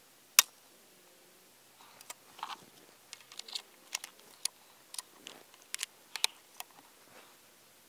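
A single shot from an FX Impact MKII .22 PCP air rifle, one sharp crack about half a second in. It is followed by a run of small metallic clicks and clatters as the rifle's action is worked by hand.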